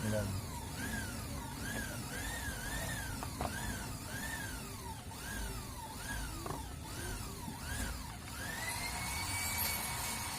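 Emergency-vehicle siren sweeping up and down in pitch over and over, about once every three-quarters of a second, then near the end rising into one long held wail, over a low rumble of background noise.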